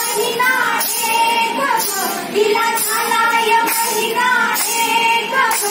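A group of women singing a Marathi song together, a lead voice carried by a handheld microphone, with long held notes.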